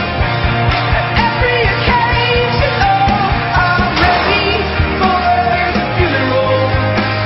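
Rock song playing: a steady drum beat and guitars, with a voice singing a drawn-out, gliding melody over them.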